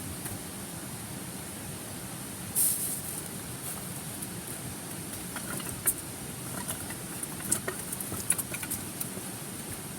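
Steady rush of a nearby stream with a wood campfire crackling, sharp pops coming thick in the second half and a brief hiss about two and a half seconds in.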